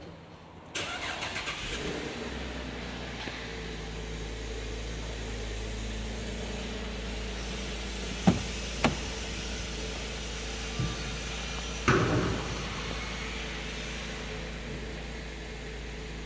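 2012 Holden Commodore SV6's 3.6-litre V6 cranking and catching about a second in, then settling into a steady idle. Near the middle come a few sharp knocks, and a circular saw next door is heard briefly in the background.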